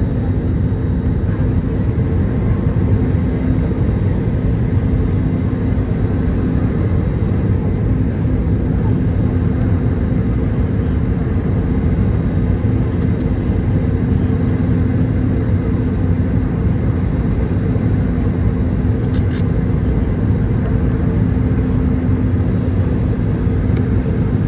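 Airbus A321neo cabin noise in flight: a steady engine drone with a constant hum and rushing airflow, with a brief click about 19 seconds in.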